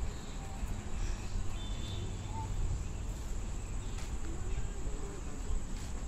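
Crickets trilling in a steady high-pitched drone, over a low rumble.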